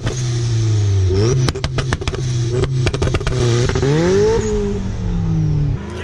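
A Honda Civic hatchback's engine, running with its hood open, is revved twice. The pitch climbs briefly about a second in, then higher around four seconds in before dropping back, with sharp popping cracks in between.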